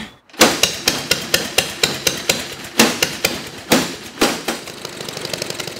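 Hammering: a quick, irregular run of sharp blows, a few of them much louder than the rest. Near the end a faster, even pulsing starts up.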